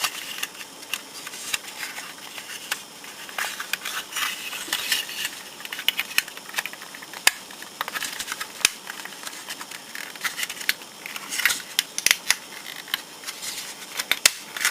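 Bandai plastic model kit parts being handled and fitted together by hand: irregular small clicks and rustling scrapes, with quicker runs of clicks near the end.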